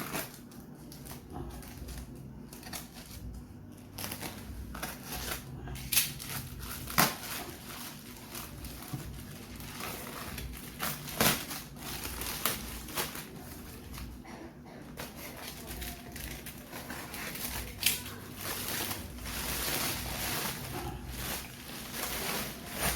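Packaging being handled and opened: crinkling and crumpling of wrapping, with scattered clicks and a few sharper knocks.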